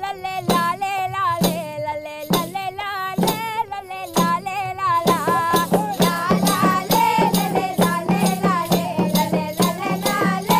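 Background music: a song with a singing voice over a percussion beat with a shaker or rattle; the beat turns faster and busier about halfway through.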